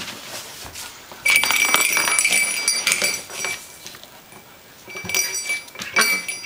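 A small Christmas ornament clinking and rattling on a tile floor as a puppy bats it about, with a high metallic ringing over the clicks. A long burst of jingling starts about a second in, and two shorter bursts follow near the end.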